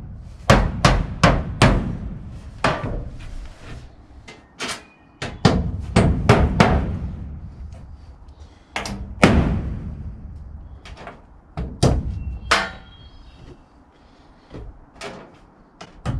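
Hammer nailing a piece of old metal roofing to a wooden beam: runs of sharp strikes, several quick blows in a row, with short pauses between the runs.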